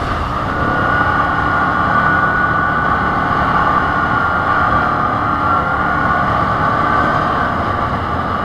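Quad bike (ATV) engine running steadily under way: a constant drone with a steady whine over a rough low rumble from riding on a gravel track.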